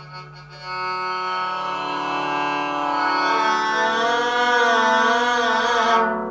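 A guzheng string bowed with a bow, making one sustained tone that starts just under a second in. From about halfway through, vibrato makes the pitch waver, and the tone stops shortly before the end.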